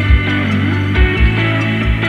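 Background music: sustained melodic tones over a low drum beat, with drum hits about every half second to second.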